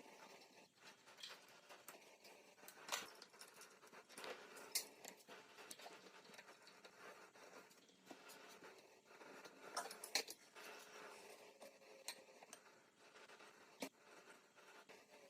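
Faint, irregular scraping and light clicks of tools and metal parts being handled while working on an old hydraulic jack, with a few sharper knocks.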